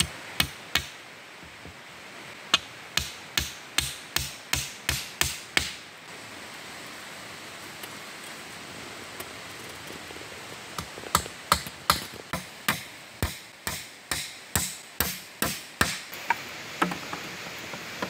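Hammering on wooden poles: two runs of sharp knocks, about three a second, with a pause of a few seconds between them, as the sticks of a wooden trap frame are driven and fixed together.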